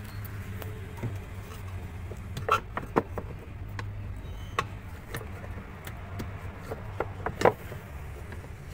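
Scattered sharp clicks and knocks of hands handling parts during work on a twin-tub washing machine's V-belt drive, the loudest a pair a little before the middle and another near the end, over a steady low hum.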